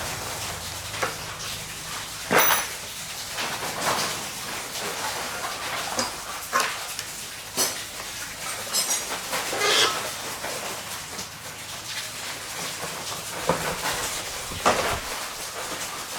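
Scattered knocks and metallic clinks, a dozen or so irregular strikes, some ringing briefly, as of hand tools on metal motorbike parts.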